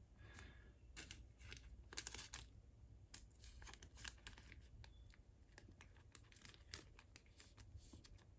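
Faint crinkling rustles and light clicks of plastic card sleeves being handled as a trading card is slipped into them.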